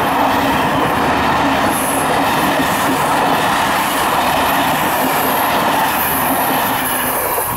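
Passenger coaches of a locomotive-hauled night train rolling past at speed close by: a loud, steady rush of wheels on rails. It eases slightly near the end as the tail of the train goes by.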